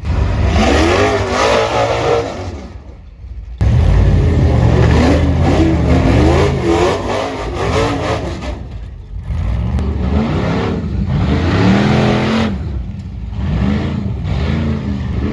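Several Ultra4 rock-racing buggy engines revving up and down over and over, their pitch rising and falling in short swells. The sound changes abruptly about three and a half seconds in.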